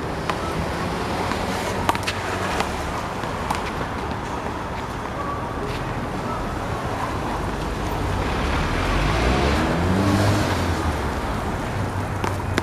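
Road traffic running steadily, with one vehicle's engine rising in pitch as it speeds up, loudest near the end. Scattered sharp slaps, a small rubber handball striking hands and the wall, come through it.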